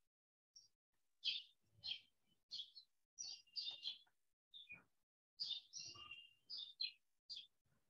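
Small birds chirping in a quick run of short, high calls, picked up faintly through a video-call microphone, with the sound gated to dead silence between chirps.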